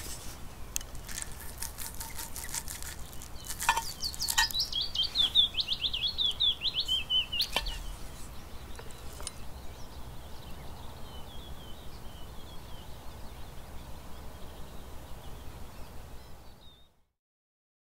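A songbird singing a fast trill of short descending notes for about four seconds, with a fainter run of similar notes later, over scattered sharp clicks and crackles from the cast-iron pan. The sound cuts off about a second before the end.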